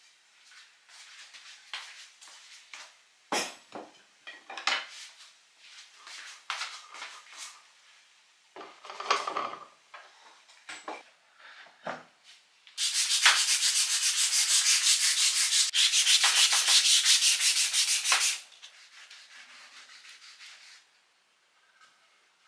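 A wooden cutting board being sanded by hand, rapid back-and-forth strokes of abrasive across the wood for about five seconds, then lighter rubbing. Before that, wooden boards and utensils knock and clatter as they are handled.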